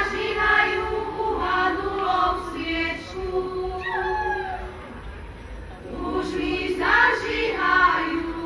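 Women's folk choir singing a Slovak folk song together in high voices. One phrase is followed by a short break about halfway, then a new phrase that ends on a held note.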